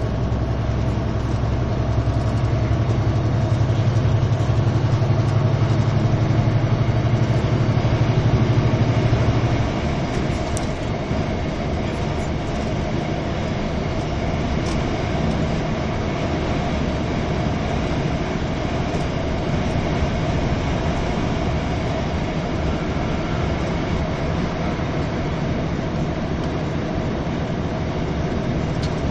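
Engine and road noise heard from inside a vehicle driving at speed on a highway: a steady drone with a deep engine hum that drops in level about ten seconds in, leaving the tyre and engine hum running on.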